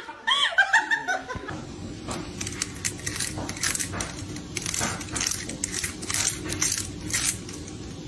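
A person laughs briefly, then a cat gnaws on a wicker basket handle: irregular crisp crunching clicks of the woven cane, a few a second.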